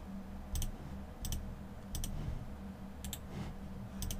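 Computer mouse buttons clicking about five times, roughly once every second or less, each click a quick double tick of press and release, over a steady low hum.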